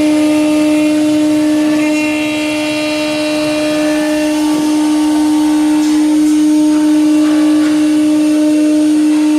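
A CNC router's 9 kW HQD spindle running at a constant speed, a loud steady whine at one fixed pitch, with fainter higher tones shifting from about two seconds in as it machines an FRP mould.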